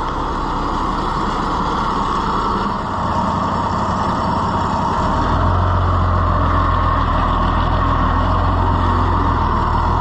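Oliver tractor's engine running steadily; about five seconds in it becomes louder and deeper with a strong low hum.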